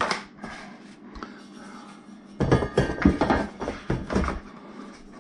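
Cardboard box and moulded pulp packing inserts scraping and knocking as a stiff stand is lifted out and handled. There is a sharp knock at the start, and the handling grows busier and louder from about halfway.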